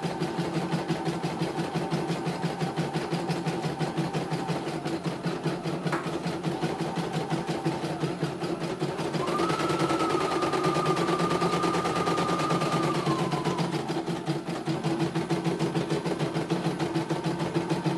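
CNY E900 computerized embroidery machine stitching a test design: a fast, even needle rhythm over a steady motor hum. A higher whine joins in from about nine to thirteen seconds in.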